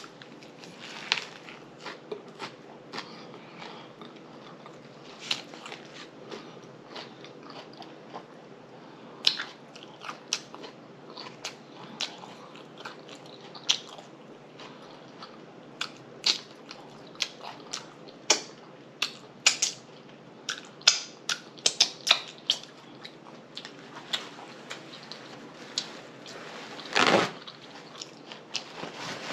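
Close-miked biting and chewing of a fried whiting fish slider: irregular wet lip smacks and mouth clicks. A louder brief rush of noise comes about 27 seconds in.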